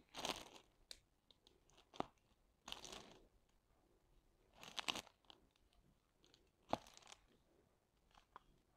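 Clear plastic protective film over a diamond painting canvas crinkling as it is handled, in four short rustling bursts with a few sharp clicks between them.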